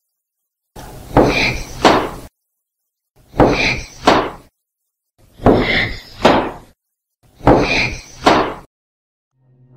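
A short recorded snippet played four times over, with silent gaps between. Each time it holds two quick, breathy noises, which the recordist takes for a whispered four-word EVP voice heard while climbing a stairwell alone.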